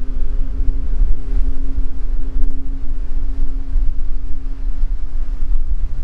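Wind buffeting the microphone with a heavy low rumble, over surf breaking on the shore, with a steady low hum underneath.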